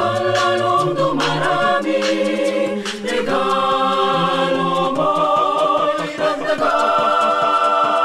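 Mixed group of men's and women's voices singing a cappella in harmony, holding chords that change every second or two.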